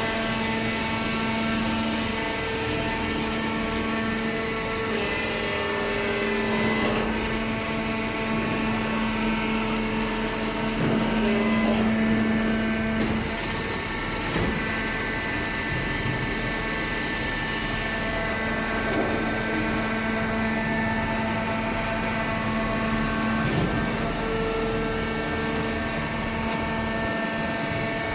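Paper baler machinery running: a steady mechanical hum with several whining tones that shift now and then.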